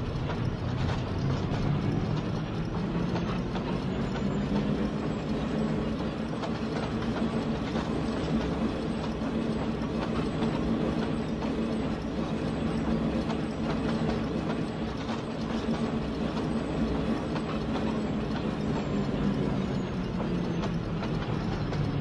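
Diesel locomotive engine sound effect running steadily with a low, pitched drone. Its pitch sags slightly near the end as the engine slows down.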